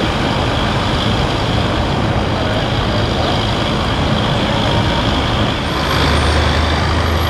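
Road traffic on a busy street, a steady rush of passing vehicles, with a heavy vehicle's low engine hum growing louder about six seconds in.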